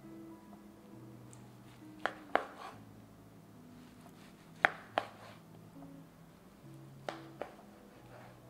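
Chef's knife slicing orange halves and striking the cutting board: three pairs of sharp knocks a couple of seconds apart. Soft background music plays underneath.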